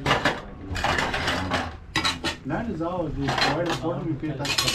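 Metal tools scraping and clanking against a pan in a series of short strokes as thickened, finished gur (cane-sugar paste) is worked out of it.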